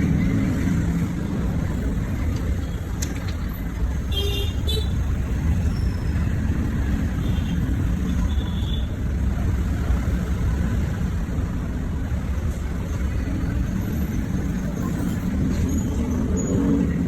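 Steady low rumble of road traffic, with a short high horn toot about four seconds in.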